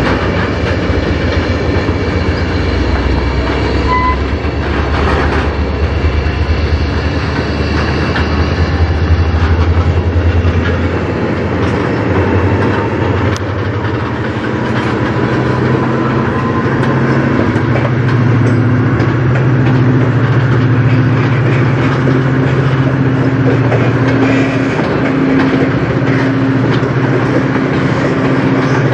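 Freight train of tank cars rolling past, a steady rumble of steel wheels on the rails. A steady low hum joins in a little past the middle.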